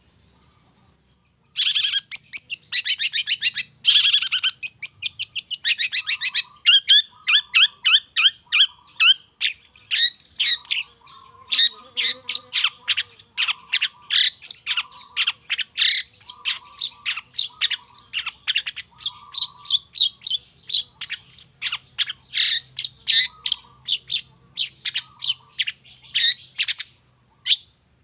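Long-tailed shrike (cendet) singing a fast, continuous chattering song of short, sharp notes, with a lower buzzy chatter mixed in. It starts after a short pause.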